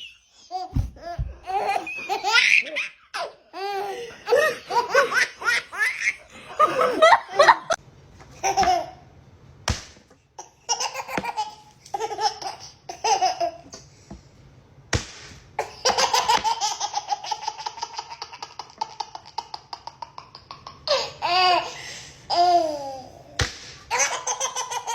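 Babies laughing in bursts of giggles and belly laughs, with a long run of quick, even laughs past the middle.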